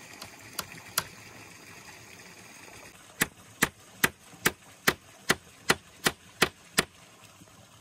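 Sharp strikes of a hand tool: two single knocks, then after a short pause a steady run of about ten blows, two to three a second, that stops suddenly.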